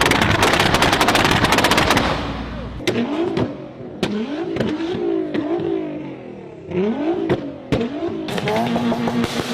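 A car engine's exhaust crackling and popping. A rapid, loud string of crackles for the first three seconds or so, then the engine is revved up and down several times with single sharp pops between the revs, and another burst of crackling near the end.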